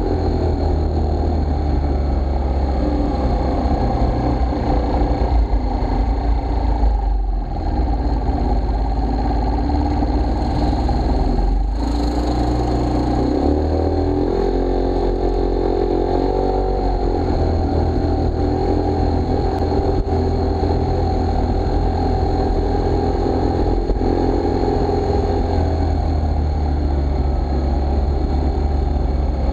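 A scooter's motor running continuously while riding through town, dropping in speed around the middle as the scooter slows nearly to a stop, then picking up again.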